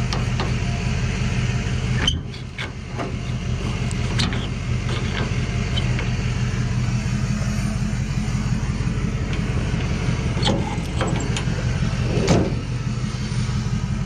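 Pickup truck engine idling steadily, with a few light knocks and clanks over it, the loudest near the end.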